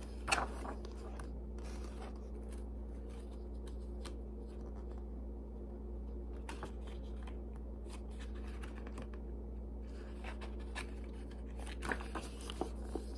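Pages of a hardcover picture book being handled and turned: a few soft paper rustles and taps, the clearest about half a second in and again near the end, over a steady low hum.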